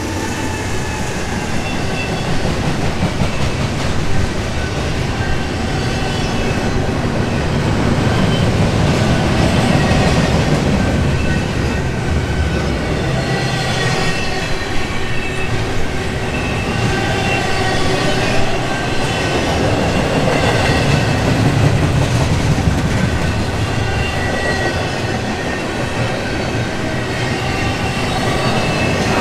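Double-stack intermodal container well cars of a freight train rolling past: a steady rumble of steel wheels on rail, with thin high squeal tones coming and going above it.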